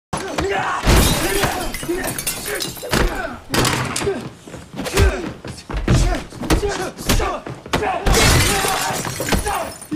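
Hand-to-hand fight sound effects: heavy punches and body impacts about once a second, glass shattering, and men grunting and straining between the blows.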